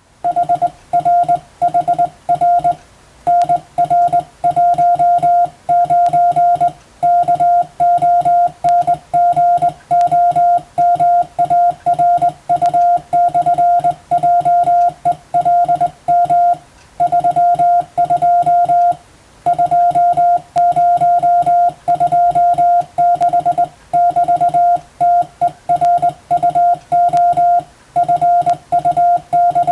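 Morse code (CW) sent with a telegraph key: a single steady mid-pitched beep switching rapidly on and off in dots and dashes, with short gaps between characters and a few longer pauses.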